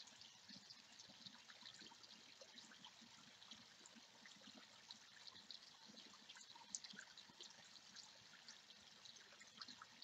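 Small garden pond waterfall: water trickling over stones and splashing into the pool, a faint steady patter of tiny splashes and drips.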